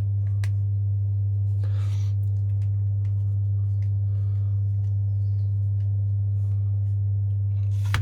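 A steady low hum throughout, with a few faint clicks and a brief scrape of small airsoft pistol parts being handled during reassembly, and a sharper click near the end.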